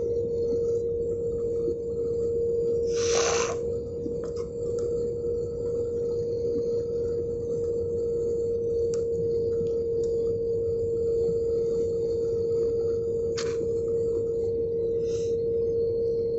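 Airliner cabin noise on a descent toward landing: the steady drone of the jet engines and rushing air, with a strong steady single tone over it. A brief hiss comes about three seconds in, and a shorter one near the end.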